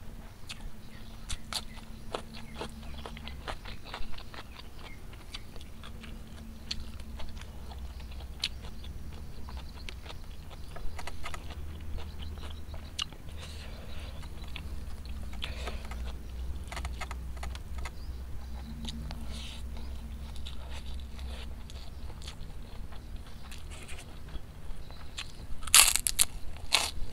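Close-up chewing of tempe penyet eaten by hand, with many small mouth clicks. Near the end, loud crunching bites into a kerupuk cracker.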